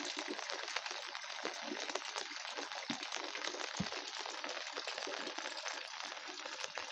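Steady rain falling on leafy chilli plants: a dense hiss of many small drop ticks, with a couple of soft low thumps about three and four seconds in.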